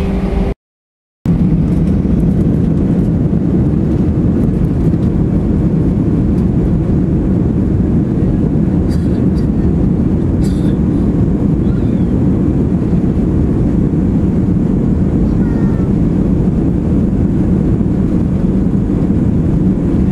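Steady low rumble of an Airbus A319's jet engines and airflow heard from inside the cabin as the airliner rolls along the runway at low power, with no spool-up. The sound cuts out completely for under a second just after the start.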